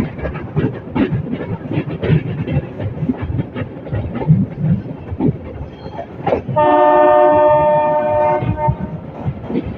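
Metre gauge train running, its coach rattling and knocking over the rail joints, with the locomotive's horn sounding one steady blast of about two seconds a little past the middle.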